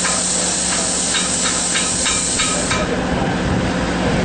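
Hypertherm Powermax plasma cutter arc cutting metal: a loud, steady hiss with a faint crackle. About three seconds in the bright hiss falls away, leaving a duller rushing noise.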